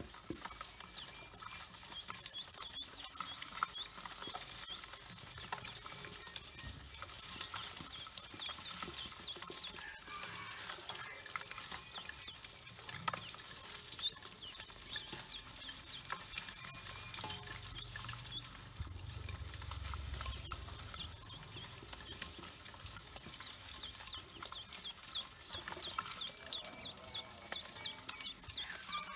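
A bowlful of newly hatched ducklings peeping, many short high peeps overlapping, thickest in the first few seconds and again near the end. Under the peeps runs a constant scrabbling and rustling of small feet and bodies against the steel bowl.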